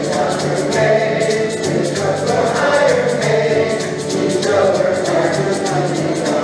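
A group of voices singing a folk song in unison, accompanied by several strummed acoustic guitars keeping a steady rhythm of about four strokes a second.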